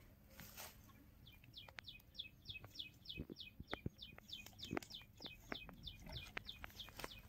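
A bird calling a fast series of short, high, downward-sliding notes, about three or four a second, starting about a second in. Faint scattered clicks sound alongside.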